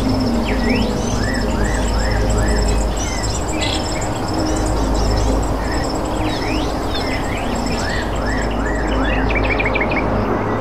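Small birds chirping and calling over and over, short notes and quick sweeping calls from several birds, over a steady low rumble.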